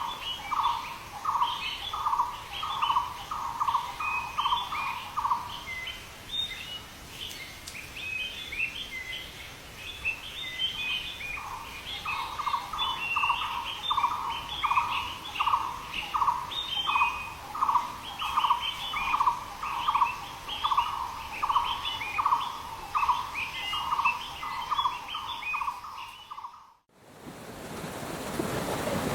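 Birds singing: quick high chirps over a lower note repeated about twice a second, which drops out for several seconds in the middle. Near the end it cuts abruptly to a steady rushing noise.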